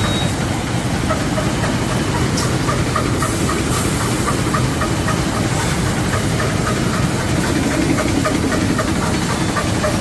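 High-speed side-gusset vest bag making machine running: a loud, steady mechanical drone with a faint hiss and a regular fast ticking over it.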